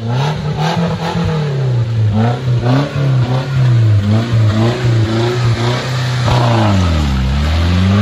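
Off-road competition 4x4's engine revving, its pitch rising and falling repeatedly as the driver works the throttle. Near the end the revs drop sharply and then climb again.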